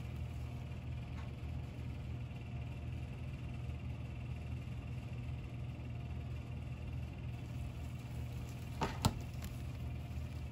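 Steady low hum, with two sharp clicks close together about nine seconds in as rigid plastic card top-loaders knock together in gloved hands.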